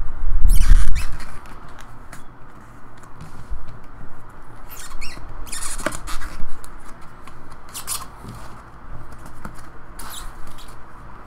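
Hands opening a 2011 Upper Deck Exquisite football hobby box and pulling out its cards: the box and cards rustle and scrape against each other, with a loud bump in the first second.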